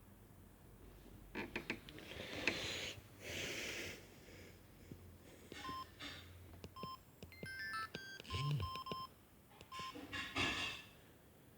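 Samsung SGH-X210 mobile phone giving short electronic beeps, mostly one tone, with a quick run of stepped tones about halfway through. Two spells of rustling handling noise come between them.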